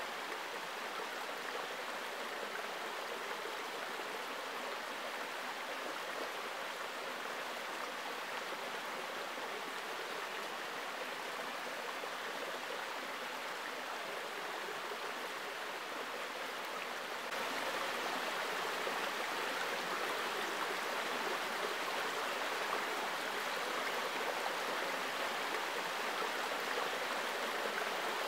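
Shallow creek running over rocks and stones, a steady rush of water that gets louder about two-thirds of the way through.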